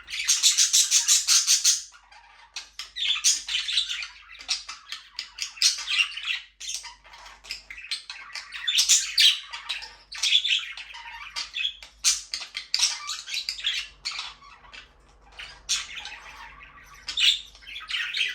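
Flock of budgerigars chattering and squawking, with overlapping high chirps. A loud run of rapid squawks comes in the first two seconds, followed by bursts of chatter.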